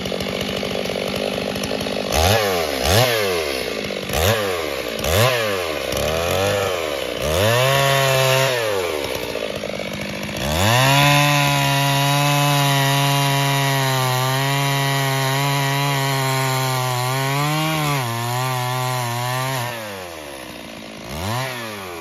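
Large two-stroke chainsaw with a long bar revved in a series of short throttle blips. It is then held at full throttle for about nine seconds as it cuts through a log, and drops back to idle near the end with one more brief rev.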